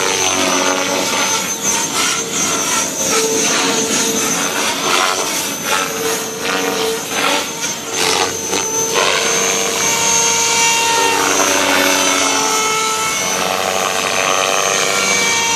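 Electric RC helicopter (Devil X360, 1,800 kV motor) flying light 3D manoeuvres: a steady motor whine and rotor blade noise. In the first half it pulses quickly; later the pitch sweeps down and back up twice as the helicopter changes attitude and flips.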